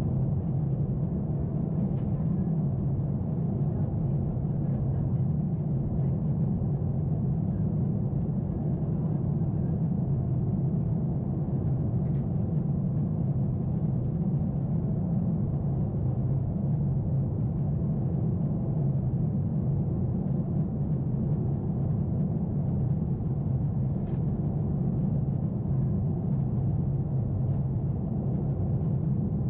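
Steady cabin drone of a Boeing 747-8 in its climb, heard from a window seat: the low, even rumble of the GEnx engines and the airflow over the fuselage, with a few faint ticks.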